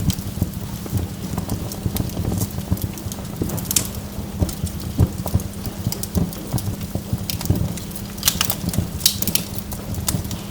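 Wood fire burning, with a steady low rumble under irregular crackles and sharp pops of the logs; a quick cluster of louder pops comes about eight seconds in.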